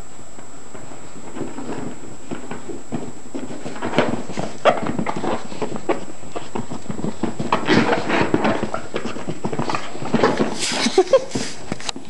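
Two Staffordshire bull terriers play-fighting over a plush toy: scuffling, paws and bodies knocking on the floor, and dog play noises. The activity comes in bursts, busiest about four, eight and eleven seconds in.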